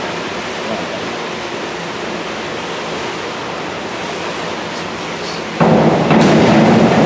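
Steady hiss of an indoor pool hall while a diver stands on the springboard. About five and a half seconds in, the sound jumps much louder as he takes off, with a sharp crack a moment later.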